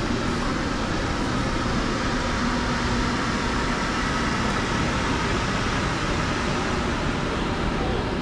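Steady, dense city street noise: a continuous hum of traffic and machinery with no distinct events.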